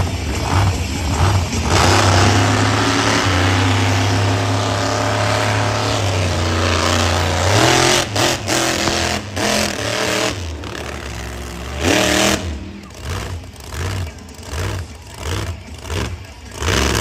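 Monster truck engine running hard at high revs, holding steady, then climbing in pitch. In the last few seconds it revs in a quick run of short on-off throttle bursts, a little over one a second.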